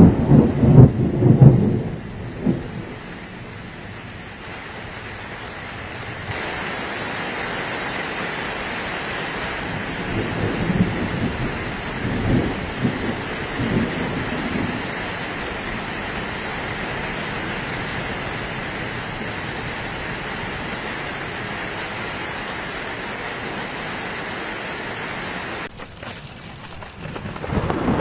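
Thunderstorm: a loud rumble of thunder in the first two seconds and weaker rumbles around the middle, over steady heavy rain drumming on a corrugated plastic roof. The rain grows heavier after about six seconds.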